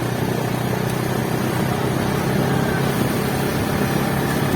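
A motor vehicle's engine running steadily at an even pitch, with a constant rushing noise over it.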